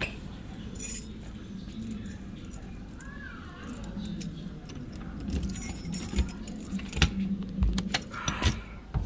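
Metal jangling with scattered clicks and knocks, densest about five to seven seconds in, over a faint steady hum.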